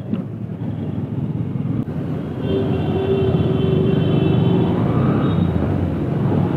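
Motorbike riding in city traffic: steady engine and road noise, growing louder about two and a half seconds in. A steady high tone sounds over it for about two seconds in the middle.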